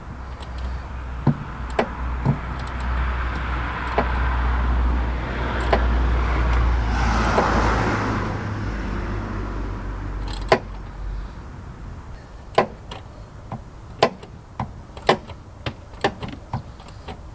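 A low rumble and rushing noise swell to a peak about halfway through and fade away. Then come sharp, irregular metallic clicks as a ratchet works an extractor socket on a rounded bolt in short strokes.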